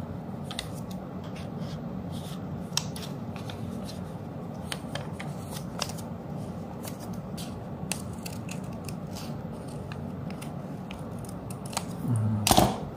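Scissors snipping through bond paper in short, irregular cuts, cutting out the centre hole of a paper letter. A louder thump near the end.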